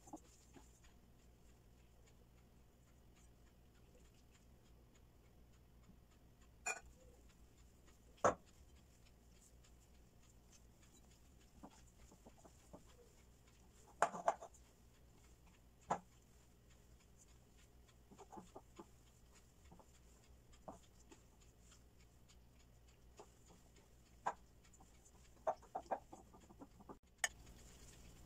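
A chicken clucking now and then: single short calls, some in quick pairs, with long quiet gaps between them. Under them runs a low steady hum.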